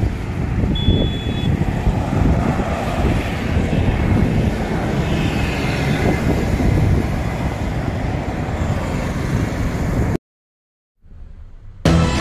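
Steady outdoor rumble of wind on the microphone mixed with road vehicle noise beside a lorry. It cuts off suddenly, and background music starts near the end.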